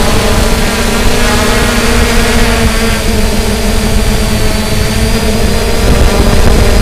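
Camera drone's propellers humming steadily, a whine of several stacked tones that shift slightly in pitch, over a low rushing rumble.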